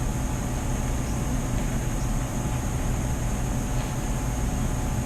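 Steady background hum and hiss, like a running fan or other appliance, with no distinct events.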